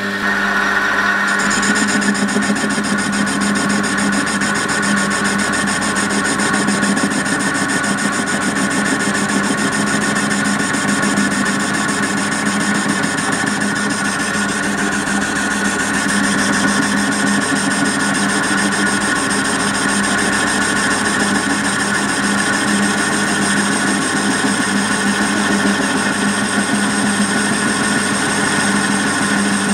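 Small bench-top metal lathe turning a cast aluminium block and taking a light cut: a steady machine hum from the motor and gearing, with higher steady tones joining about a second in.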